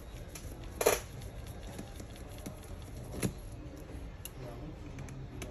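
Small handling noises from screw removal on an opened laptop chassis: a short scrape about a second in, a sharp click a little after three seconds and a few faint ticks, over a low steady hum.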